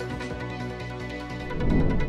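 Electronic background news music with steady sustained tones; near the end a short, loud low swell rises into the cut, a transition effect under a graphic wipe.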